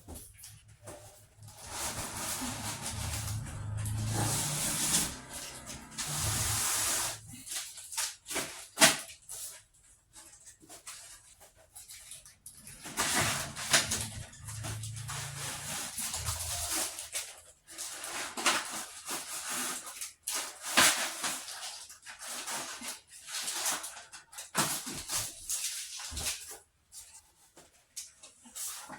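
Irregular rustling and scraping of packaging being handled, with a few sharp knocks in between.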